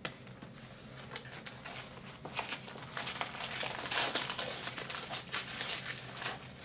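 Brown kraft paper crinkling and rustling as hands unfold and pull open a paper-wrapped package, getting louder about halfway through.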